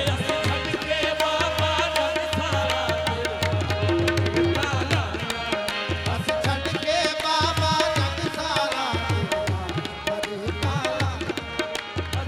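Qawwali music in an instrumental passage: tabla playing a steady rhythm under held harmonium notes, with no sung words.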